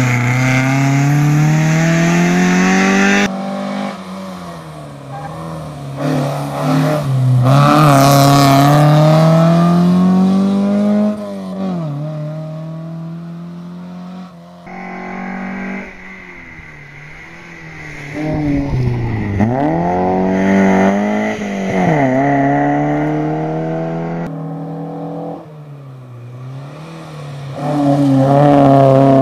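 Toyota Celica TA23 rally cars accelerating hard out of a hairpin and pulling away up the road. The engine note climbs through the revs again and again, dropping at each gear change, with a few abrupt cuts between passes.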